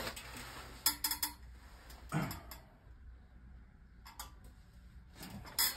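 A few scattered light clicks and taps of small objects being handled off-camera at a resin-crafting workbench, with a soft knock about two seconds in and quiet gaps between.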